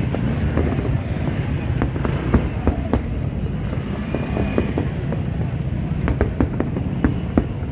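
Fireworks going off in quick succession: a continuous low rumble of bursts with many irregular sharp pops and crackles.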